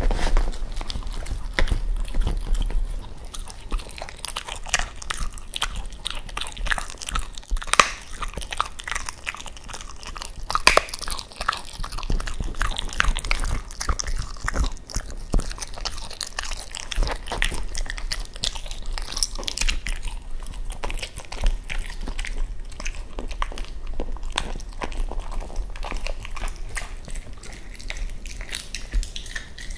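Cavalier King Charles Spaniel chewing raw chicken, biting and crunching through the soft bones in irregular bites.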